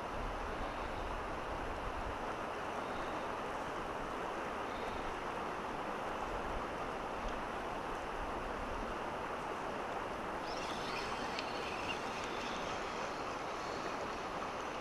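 Shallow mountain river flowing fast over a stony bed, a steady rush of water close to the microphone. A brief patch of faint crackling comes about two-thirds of the way through.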